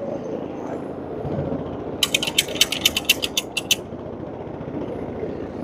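Carpet-cleaning machine running with a steady rushing noise. About two seconds in, a quick run of roughly a dozen sharp clicks lasts under two seconds.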